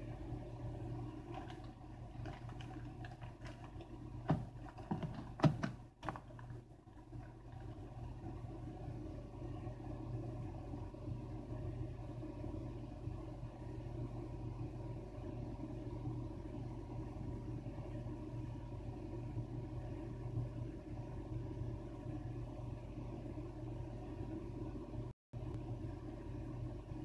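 A steady low mechanical hum, with a few sharp clicks and knocks about four to six seconds in. The sound cuts out completely for a moment near the end.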